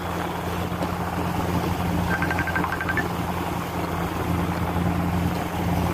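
Boat engine running with a steady low hum over water and wind noise. About two seconds in, a quick run of short, high, evenly spaced beeps.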